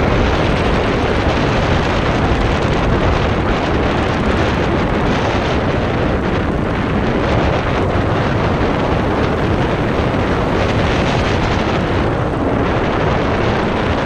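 Strong wind buffeting the microphone: a loud, steady rumbling rush with no let-up.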